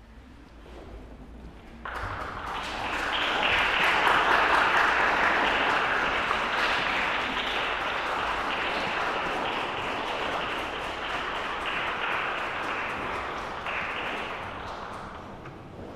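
Audience applauding: the clapping starts suddenly about two seconds in, swells to its loudest a couple of seconds later, then slowly thins out near the end.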